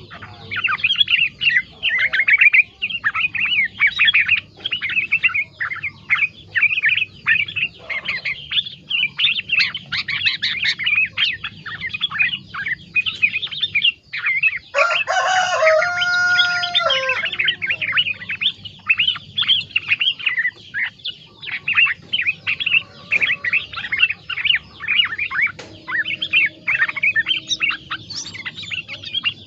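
Yellow-vented bulbul (terucuk) singing a long run of quick chattering, whistled phrases, with greater green leafbird (cicak ijo) phrases worked into its song. Roughly halfway through, a rooster crows once for about two seconds.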